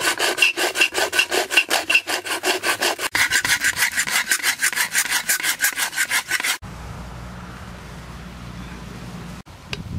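Aluminium drink can scraped back and forth against a flat whetstone in quick, even strokes, about five a second. The scraping stops suddenly about two-thirds of the way in, leaving only a faint steady low noise.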